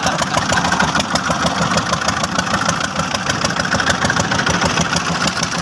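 An engine running steadily with a rapid, even knocking beat.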